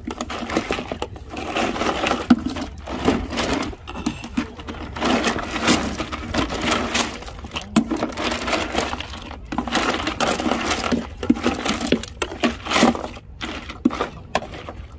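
Close, uneven crackling and rubbing handling noise as a hand rummages among a mass of small freshly caught scad in a plastic cooler, with many small clicks and scrapes.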